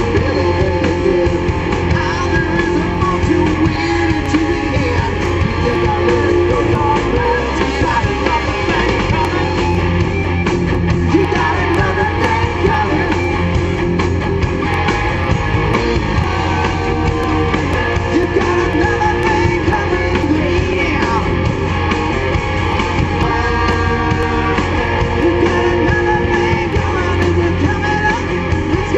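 Live rock band playing: electric guitars and drums, with a lead vocal over them.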